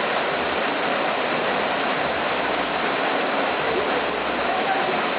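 Waterfall, its water rushing as a steady, even roar with no separate splashes.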